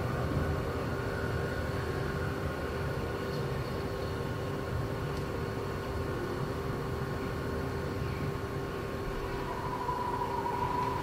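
Exhibition hall ambience: a steady low rumble with a constant hum, and a faint wavering tone that rises in about nine seconds in.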